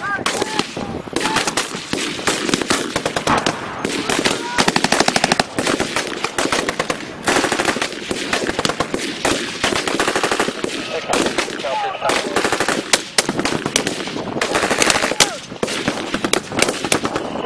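Small-arms fire from a squad of soldiers: rifles firing many rapid, overlapping shots, sustained throughout with a few brief lulls.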